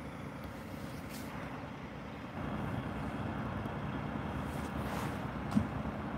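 Diesel engine of a Peterbilt tri-axle dump truck running with a steady low rumble, a little louder from about two seconds in, with a brief knock near the end.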